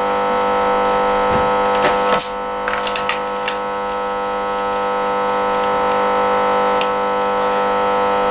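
A steady electrical hum, with scattered light clicks and taps, a cluster of them a couple of seconds in, as a compression tester's hose is threaded into a spark-plug hole in the cylinder head.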